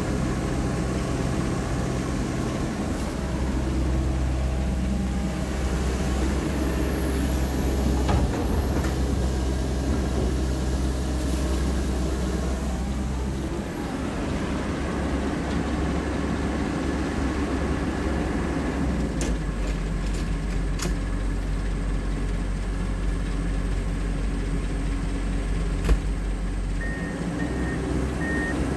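Komatsu PC195LC crawler excavator's diesel engine running under load as it digs a dirt hillside, its note shifting several times as the hydraulics work the arm and bucket. There are a few sharp knocks along the way, and a steady repeated beeping starts near the end.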